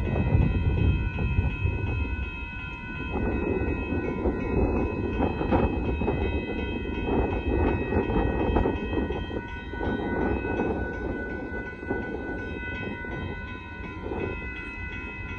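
Approaching Union Pacific freight train: a steady low rumble, with several steady high ringing tones held over it.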